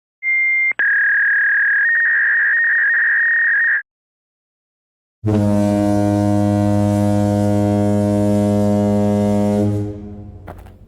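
A steady high-pitched electronic beep tone lasts about three and a half seconds, with a short break near the start. After a pause of over a second, a loud, low, buzzing horn-like tone with many overtones holds for about four and a half seconds, then cuts away into fading noise.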